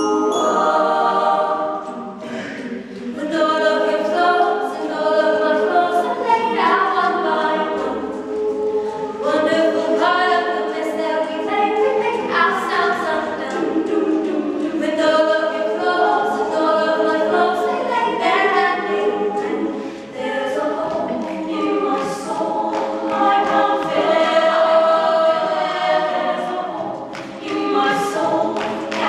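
Women's choir singing together, unaccompanied.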